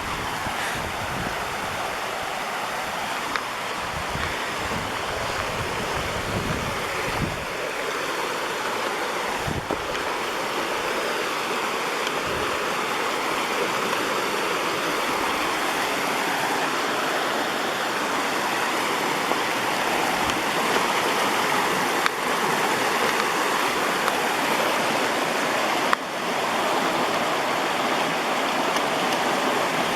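Rushing water of Deep Creek, a steady even rush that grows slightly louder. Low gusts of wind buffet the microphone during the first several seconds.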